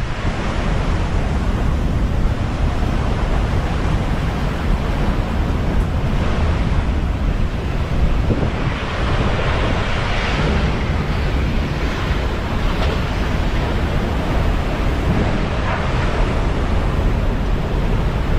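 Derecho storm winds buffeting the microphone with driving rain: a loud, steady rush with a heavy low rumble, swelling in stronger gusts about halfway through and again near the end.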